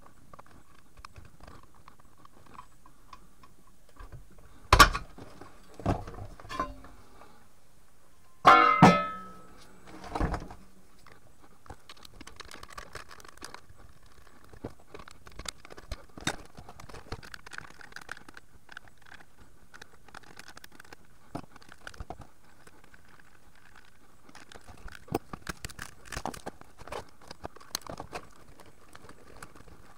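Metal parts and hand tools knocking and clinking as a Webasto Thermo Top V heater is taken apart on a workbench. A few sharp knocks come in the first ten seconds, the loudest a ringing metallic clatter about nine seconds in, followed by a long run of small clicks and taps.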